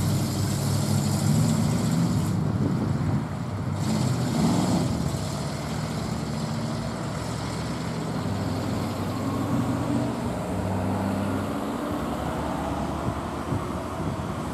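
The 5.2-litre V8 of a 1947 Dodge panel delivery van driving away down the street, its exhaust note growing fainter as it pulls off into the distance.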